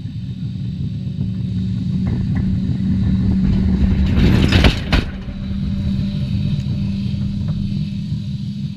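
Electric tram rolling along the rails and passing directly over a microphone at track level: a steady low hum and rumble build to a loud, rushing peak about four to five seconds in, ending in a sharp clack of the wheels, then the tram rolls away.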